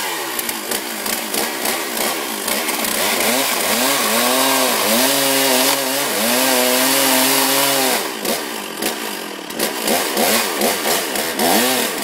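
Two-stroke gas chainsaw running and being revved. The engine speed rises and falls, is held high for several seconds in the middle with two brief dips, then comes in short throttle blips near the end.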